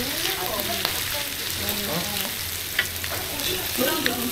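Swordtip squid sizzling on a hot griddle, with a steady frying hiss. A metal spatula scrapes and clicks against the plate a few times as the squid is pushed and turned.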